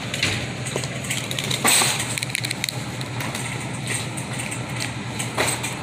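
Steady low mechanical hum of a grocery store's background, with scattered small clicks and two short rustling bursts, one about two seconds in and one near the end.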